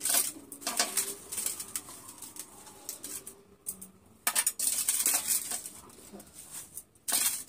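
Chopped cabbage being scooped by hand out of a steel bowl and dropped into another metal bowl: bursts of crisp leaf rustling and light clatter against the metal, with quieter gaps between.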